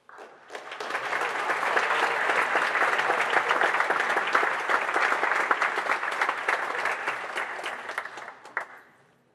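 Audience applauding: the clapping starts suddenly, builds over about a second, holds steady, then dies away near the end with a few last claps.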